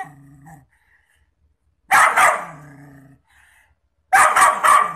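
A dog barking at its own reflection in a mirror: two barks close together about two seconds in, then a quick run of three or four barks near the end, with a low growl trailing after them.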